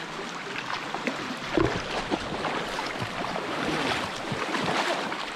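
River water splashing and sloshing irregularly as a person moves through it, with many small splashes over a steady rush of water.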